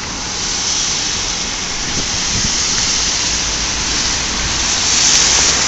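Road traffic on a wet street: a steady hiss of tyres with a low rumble, swelling about five seconds in as a vehicle passes.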